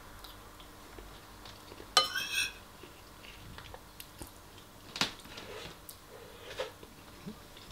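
Metal spoon scraping and clinking against a ceramic bowl while scooping rice: one longer ringing scrape about two seconds in, then a few short clicks. Quiet chewing between the clinks.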